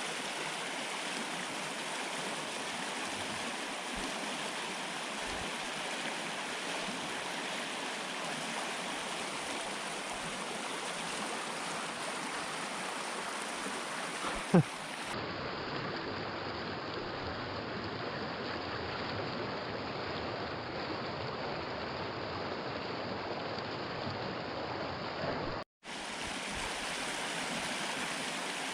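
Stream water rushing steadily, the current carrying floating snow and ice. A single sharp knock about halfway through, then the water sounds duller for about ten seconds and cuts out for an instant near the end.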